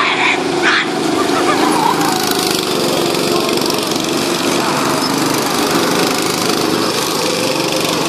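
Small engines of fairground go-karts running steadily as several karts drive laps past close by, with two short high-pitched sounds within the first second.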